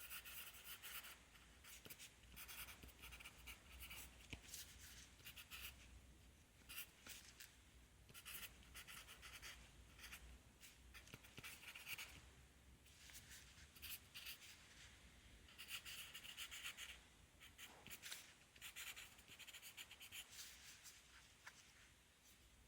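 Pencil writing on paper: runs of short scratchy strokes, broken by brief pauses.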